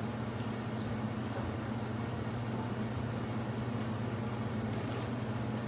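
Steady low hum over a faint hiss, with no events: the room tone of a large hall, with a mains-like hum.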